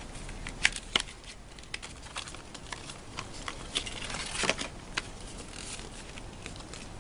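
Paper and cardboard handling: the iPad 2 documentation packet being opened and its instruction booklet and Apple stickers taken out. Scattered light clicks and taps, with a short rustle about four and a half seconds in.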